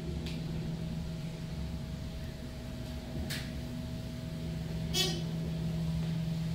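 Steady low mechanical hum of a large store's interior, with a faint click about three seconds in and a short, sharper clack about five seconds in.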